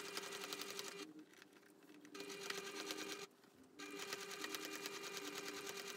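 Electric sewing machine stitching a zipper into denim, running with a fast, even needle rhythm and a steady hum. It stops briefly twice, about a second in and again a little after three seconds, then carries on.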